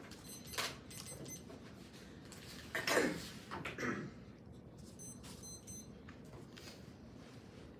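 Two quick runs of short, high-pitched electronic beeps, one just after the start and one about five seconds in. Low handling noise sits between them, with a brief louder rustle about three seconds in.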